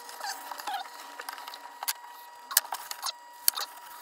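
Metal scraper blade scraping old sealant off the fiberglass rim of a sink cutout: irregular scrapes and sharp ticks, a few louder ones about two and a half and three and a half seconds in.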